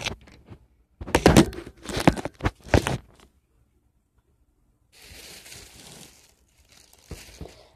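Rustling, crinkling handling noise with loud knocks from hands moving over the phone and its microphone. The knocks are loudest from about a second in to three seconds. A softer rustle follows around five to six and a half seconds.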